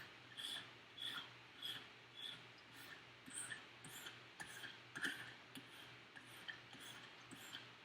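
A sharpening stone on a KME guided sharpener's rod stroked along the edge of a Victorinox Huntsman blade: a faint, regular scraping at roughly two strokes a second, a little softer in the later strokes.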